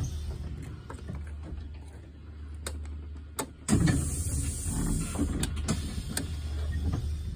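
2019 Thomas Built C2 school bus's entrance door worked from the DOOR OPEN / DOOR CLOSED rocker switch: a few switch clicks, then about halfway in a sudden hiss and the door mechanism running for a few seconds, over a steady low hum.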